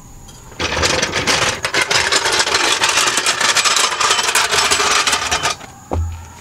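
A power tool running down a bolt on the car's rear suspension: a fast, continuous rattle that starts about half a second in, lasts about five seconds and stops sharply. A low thump follows near the end.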